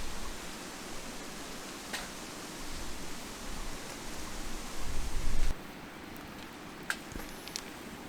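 Steady rushing of a mountain stream. About five seconds in a low rumble swells, then the sound cuts to a softer hiss with a few faint sharp clicks.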